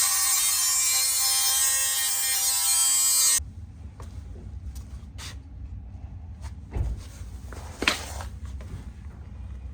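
Angle grinder running steadily on steel, then cutting off abruptly about three and a half seconds in. After it comes a low hum and a few light knocks.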